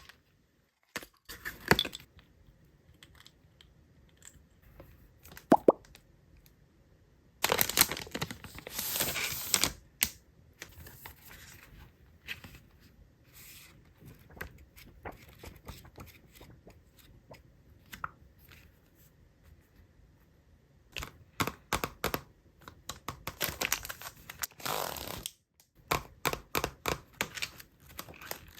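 Plastic packaging of small stationery items being handled, with bursts of crinkling and tearing, and scattered light taps and clicks as items are set down.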